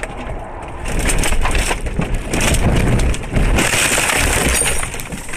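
Car crashing off the road into trees and brush: a loud, continuous crunching and scraping, full of sharp snaps as branches break against the body.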